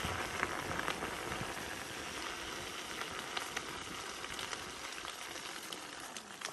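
Electric unicycle's tyre rolling over a snowy, gritted road: a steady crackling hiss with scattered small clicks.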